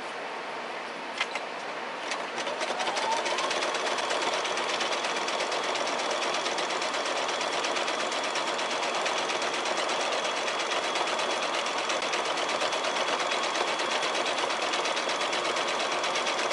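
Domestic sewing machine stitching fabric strips through batting and backing for a quilt-as-you-go block. It stitches slowly at first, with a click about a second in, then speeds up with a rising whine about two seconds in and runs steadily fast.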